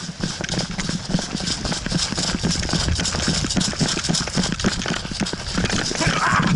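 Quick, uneven footsteps with gear rattling and knocking as a player runs, heard close up through a head-mounted action camera's microphone.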